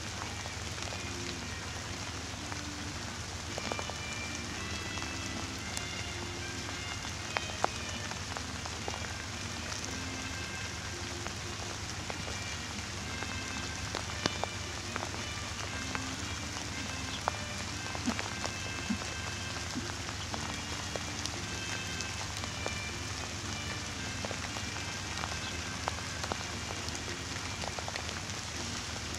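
Steady rain falling, an even hiss with scattered sharper ticks of single drops.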